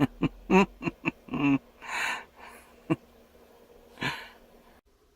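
A man's short pitched vocal sounds, brief grunts or chuckles, then a few breathy exhalations, over a faint steady hum that cuts off suddenly near the end.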